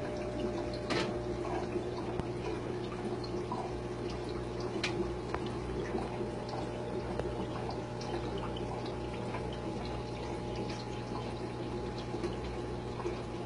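Aquarium water running and trickling over a steady low motor hum, with scattered small drips and ticks.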